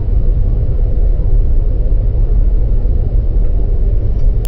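Steady low rumble of a moving car's engine and tyres on a paved road, heard from inside the cabin.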